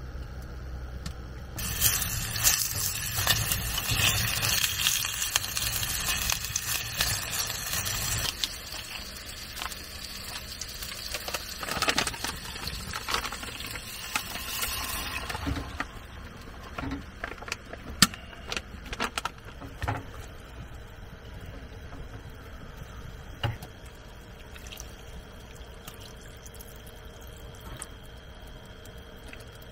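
Food sizzling in hot oil in a pot on a wood stove, starting about two seconds in and dying down after about fourteen seconds, then a few sharp knocks of a utensil against the pot.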